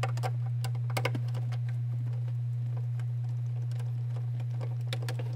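Scattered light clicks, irregularly spaced, of a hand tool backing out a T25 Torx screw in a car's lower dash trim, over a steady low hum.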